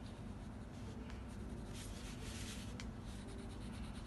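HB graphite pencil scratching faintly across paper in short strokes, shading the spaces between drawn spirals, with a longer, louder stroke about two seconds in.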